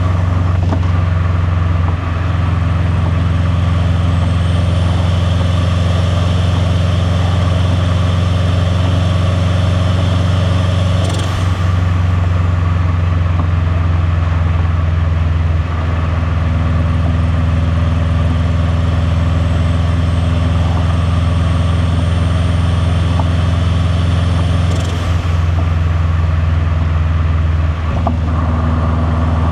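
Turbocharged flat-four engine of a 2001 Subaru Impreza WRX STi with catless downpipe and titanium cat-back exhaust, running at a steady pitch under way, a low drone. A faint high whine climbs slowly twice and breaks off, about 11 and 25 seconds in.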